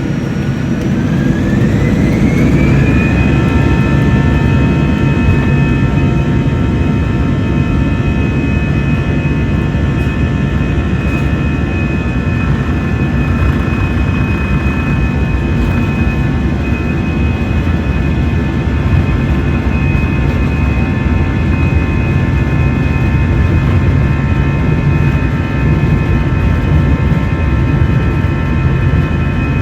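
Airbus A320 jet engines spooling up for departure: a whine rises over the first few seconds, then holds steady at high thrust over a loud, constant low rumble.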